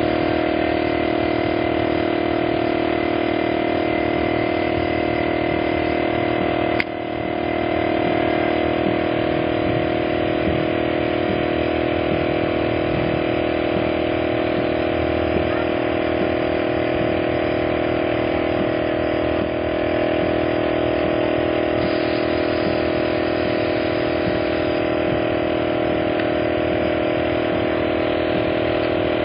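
A motor running steadily, its drone holding one pitch, with a short dip in level about seven seconds in.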